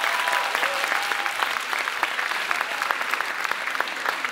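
Audience applauding: dense, steady clapping from a crowd that eases off slightly toward the end.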